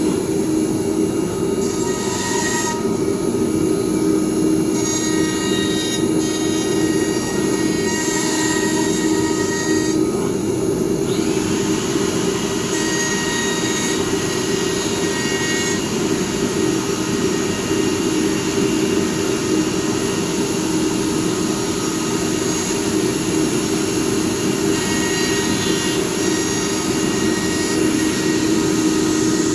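ATC CNC nesting router running a job: a steady mechanical drone with a high spindle whine over it. About eleven seconds in, a whine rises in pitch and then holds steady.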